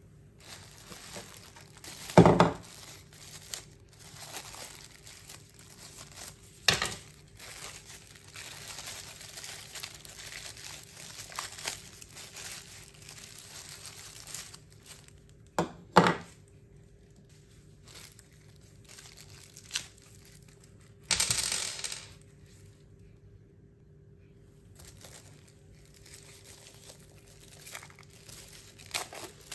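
Clear plastic packaging bags crinkling and rustling as they are handled and pulled off, with a few sharp knocks of small items set down on a hard tabletop and a longer burst of crinkling about two-thirds of the way through.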